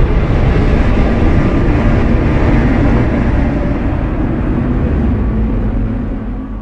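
A kaiju-style monster sound effect: a long, loud, deep rumble with no clear pitch, which slowly fades over the last few seconds.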